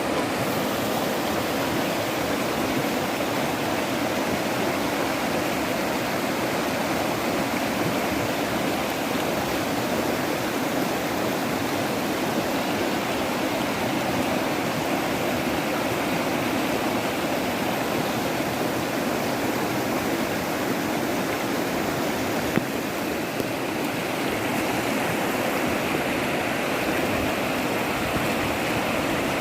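Steady, unbroken rush of fast-flowing floodwater.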